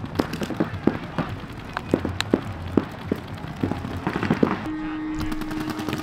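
Paintball markers firing across the field: irregular sharp pops from several guns, sometimes in quick strings. Near the end a steady low tone comes in under the shots.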